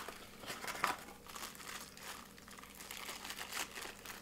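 Brown packing paper being unwrapped and crumpled in the hands, with a small plastic bag crinkling; irregular rustling with sharper crackles near the start and about a second in.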